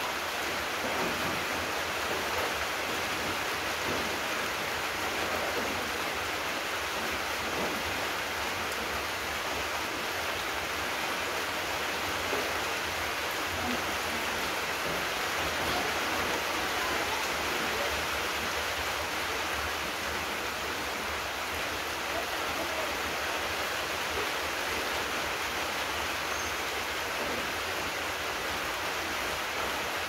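Steady rain falling, an even hiss that keeps up without let-up.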